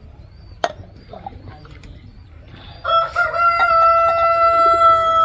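A rooster crowing: one long, steady, drawn-out call that drops in pitch at the end. A sharp click sounds about half a second in.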